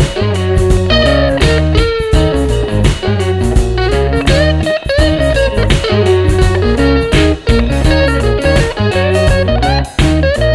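Background music: an electric guitar playing bending lead lines over bass and drums.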